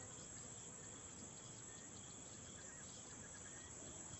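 Faint natural ambience of insects chirping over a soft, steady background hiss.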